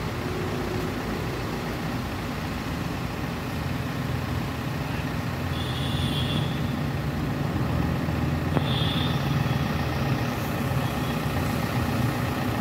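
Caterpillar 424B backhoe loader's diesel engine running steadily, getting a little louder about halfway through. Two brief high-pitched squeals sound about six and nine seconds in.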